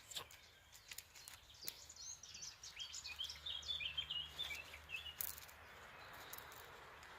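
A small bird singing a quick run of chirping, warbling notes for about three seconds mid-way, with a few faint sharp clicks scattered around it.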